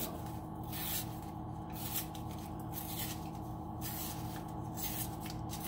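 Paper Dixie cup being torn and peeled away from a set chocolate shell by hand, in short repeated rips and crinkles, over a steady low hum.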